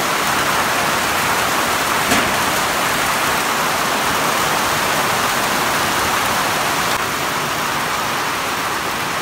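Heavy rain pouring down steadily onto corrugated metal sheet roofs, one sharp tap about two seconds in.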